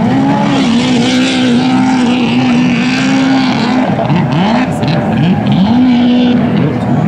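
Several racing jet skis running at high revs together, their engine whines overlapping. One holds a steady pitch for a few seconds, then from about midway the pitches repeatedly drop and climb again as the riders come off and back onto the throttle.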